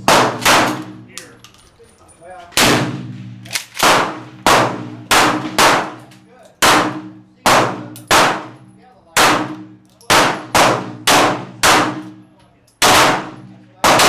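Shotgun fired in rapid succession, about twenty sharp, loud blasts at uneven intervals of half a second to a second, each trailing off in an echo.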